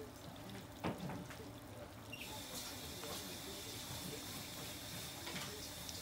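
Chicken karaage deep-frying in oil in a small aluminium mess tin: a steady sizzle that grows louder and brighter about two seconds in, with one light knock about a second in.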